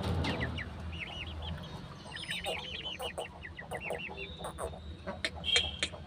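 Young Aseel chickens peeping: a rapid run of short, high, arched chirps, with a few sharp clicks near the end and a steady low hum underneath.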